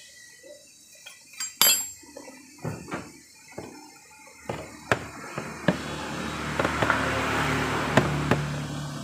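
Metal tools clinking and knocking on a motorcycle's front brake caliper as a fitting is tightened after bleeding the brake, a series of sharp clinks through the first half. From about six seconds in, a steady rushing noise with a low hum swells up under the clinks.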